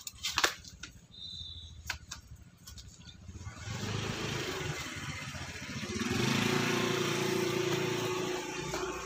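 A few sharp knocks in the first two seconds, then a small motor vehicle's engine growing louder from about three and a half seconds in and staying loud near the end, as it passes close by.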